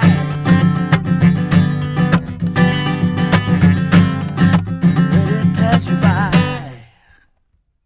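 Acoustic guitar music, strummed and picked, that fades out about seven seconds in.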